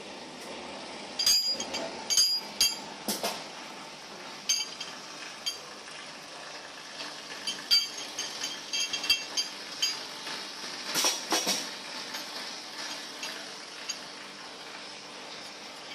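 Heavy steel anchor chain links clanking and clinking against each other as the chain is handled: irregular sharp metallic knocks with a short ring, coming in clusters.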